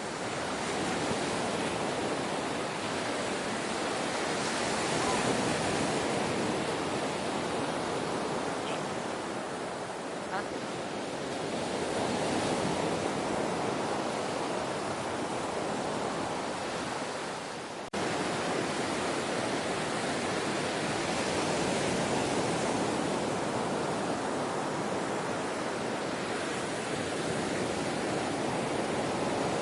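Ocean waves washing onto a shore: a steady surf wash that swells and eases in slow surges. A little past halfway it dips and then cuts back in suddenly.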